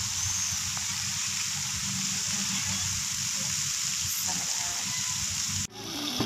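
Steady hiss of a splash fountain's water jets spraying onto paving, with a low hum beneath. The sound breaks off abruptly near the end.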